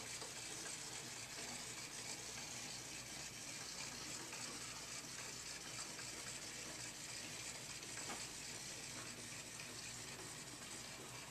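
Faint, steady hiss of room tone, with a soft click about eight seconds in.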